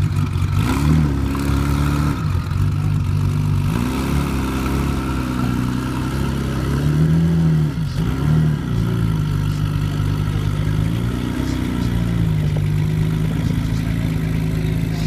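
Porsche 911 GT1's twin-turbo flat-six running at a low, steady idle, with about four short, light throttle blips that briefly raise and drop the pitch as the car rolls off slowly.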